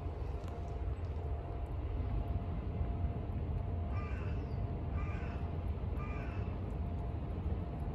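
A crow cawing three times, about a second apart, about halfway through, over a steady low rumble.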